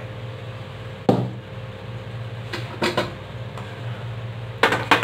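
Metal cookware knocking on a steel gas stove as pots are moved off and onto the burner: one heavy clunk about a second in, a few lighter knocks around three seconds, and a quick cluster of clanks near the end, over a steady low hum.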